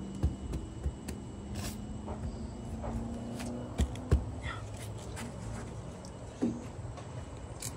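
A handful of short, sharp knocks and clicks, irregularly spaced, over a low steady hum.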